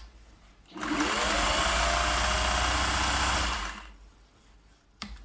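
Singer 401A sewing machine running a short burst of stitching: the motor whines up to speed about a second in, runs steadily for roughly three seconds, then stops. A couple of sharp clicks come near the end.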